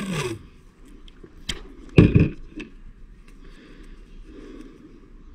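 Masking tape pulled off its roll with a short ripping sound, then handling noises: a sharp click about a second and a half in and a louder knock about two seconds in.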